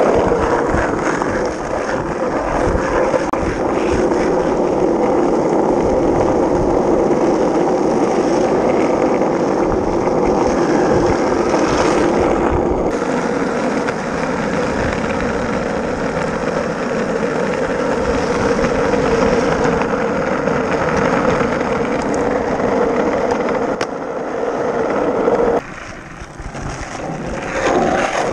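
Skateboard wheels rolling steadily over asphalt, heard close to the board. The rolling noise drops off suddenly about three seconds before the end, then builds again.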